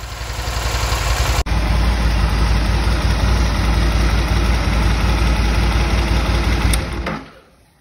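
Rotax 1000 V-twin of a 2007 Aprilia Caponord ETV1000 idling steadily, running to circulate fresh oil through its dry-sump system after an oil change. The engine gets louder after a short break about one and a half seconds in, then dies away near the end as it is switched off.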